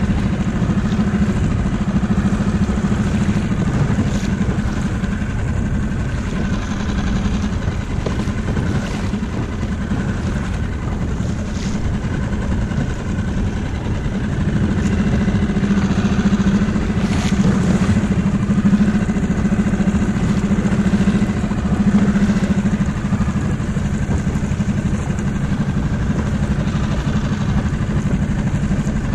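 Small outboard motor on an inflatable dinghy running steadily, a constant low hum, with a few light knocks.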